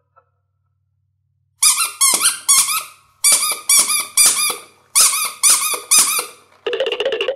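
Squeaking from a spiky rubber owl squeeze toy being squeezed by hand: about a dozen short squeaks in three quick runs, then one longer, buzzier squeak near the end.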